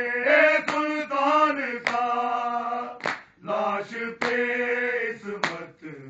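Men's voices chanting an Urdu noha in long held notes, with hands striking chests in matam at an even beat, about once every 1.2 seconds.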